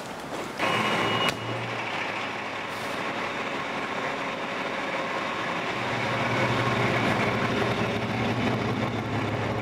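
Fire engine running and pulling out, with a brief loud hiss about half a second in; the engine grows louder in the second half.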